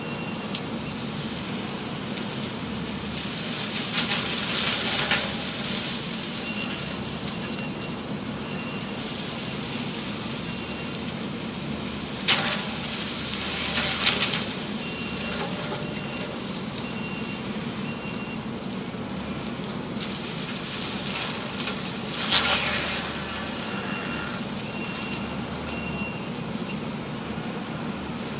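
Kubota SVL90 compact track loader running an SSECO forestry mulcher: a steady diesel drone under the hiss of the spinning mulcher drum, with several louder bursts of grinding as the drum bites into brush. A short, evenly spaced beep repeats at times.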